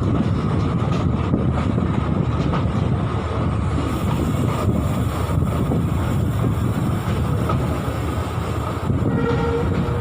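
Steady rumble of a moving diesel-hauled passenger train, with wind buffeting the microphone.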